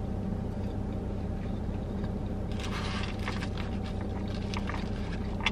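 Close-up chewing of a french fry over a steady low hum inside a car cabin; from about two and a half seconds in, a run of crackling clicks as the chicken sandwich is handled in its foil wrapper.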